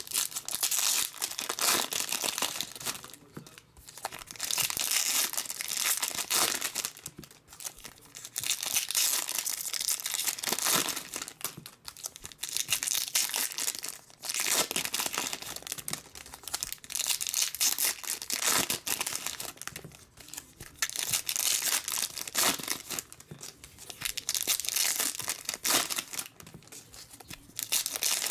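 Foil wrappers of Topps WWE trading card packs being torn open and crinkled by hand, in repeated crackling spells a few seconds long with short pauses between.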